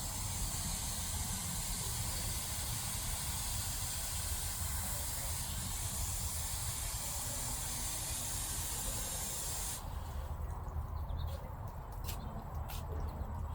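A steady hiss that cuts off suddenly about ten seconds in, followed by a few sharp clicks.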